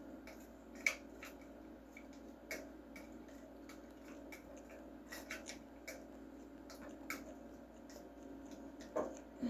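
Irregular light clicks and taps of a cinnamon stick stirring a mix of chopped onion, ginger and lemon juice in a container, over a faint steady hum.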